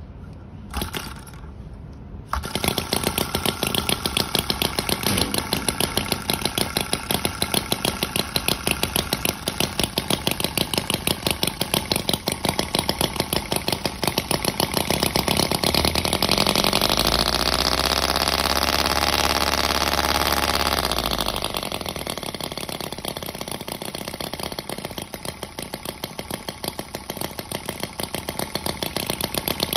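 Miniature Knucklehead-style V-twin model engine catching a couple of seconds in and running with a fast, even popping. Around the middle it revs up in a smooth rise, holds, then falls back to idle as the throttle is worked by hand.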